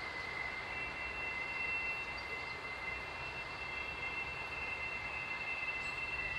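A piercing, steady high-pitched creak made of two held tones over a background hiss, seeming to come from everywhere at once. Its source is unexplained: the recordist calls it a groaning of the earth and notes that no train was passing on the railway about a kilometre away.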